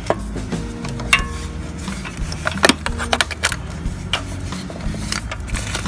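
Hand tools and metal car parts clinking and knocking in irregular sharp clicks, one about a second in ringing briefly, over a steady low rumble, as work goes on fitting a car's air-conditioning compressor.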